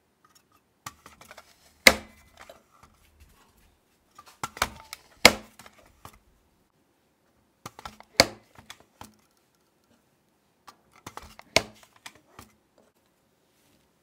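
Four bursts of sharp clicks and knocks, roughly three seconds apart, each with one loud snap, from kitchen items being handled.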